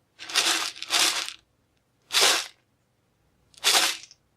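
Dry grain being shaken: four short rattling shakes with brief silent pauses between them.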